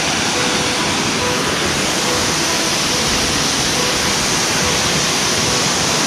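Steady, loud rushing of a tall waterfall cascading down a rock face onto boulders.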